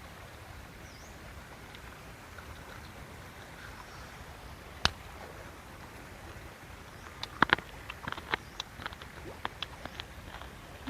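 Steady outdoor background noise with a single sharp click about five seconds in, then a quick run of light clicks and knocks near the end.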